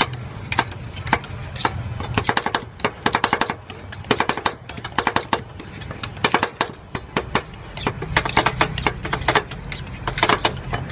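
Metal spatulas chopping and scraping ice cream mix on the frozen steel pan of a rolled ice cream machine: sharp clinking taps in quick runs of several a second.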